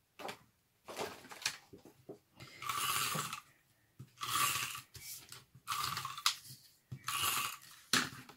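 Adhesive tape runner pulled along the back of a paper panel in four strokes about a second and a half apart, each stroke lasting under a second, after a few short clicks and rustles of the paper being handled.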